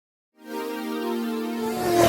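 Electronic intro music: a sustained held chord that starts about a third of a second in after silence, with one tone gliding in pitch near the end.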